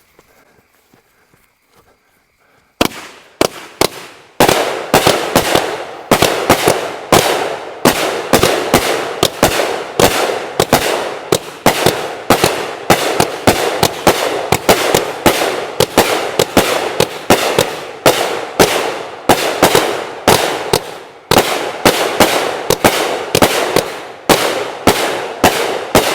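A multi-shot consumer fireworks cake firing. After nearly three seconds of quiet, the shots start and come in a steady rapid run of about two a second, each with a crackling burst tail. The run goes on for over twenty seconds.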